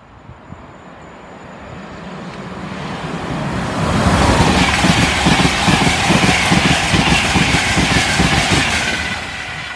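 LNER Intercity 225, a Class 91 electric locomotive hauling Mk4 coaches, passing through at speed: a rush of wheel-on-rail noise and air that builds over about four seconds, stays loud with a fast clatter of wheels for about five seconds, then falls away near the end.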